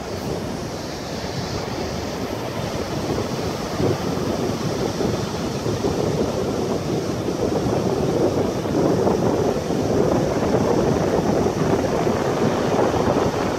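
Rough surf breaking on a sandy beach: a steady rushing roar of white water that swells and eases, with wind buffeting the microphone.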